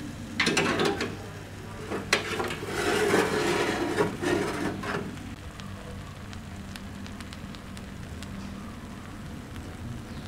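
Metal clicks, clanks and scraping as a hot baking tray is hooked with a metal tray lifter and drawn out over a toaster oven's wire rack, for about five seconds; then only a faint steady low hum.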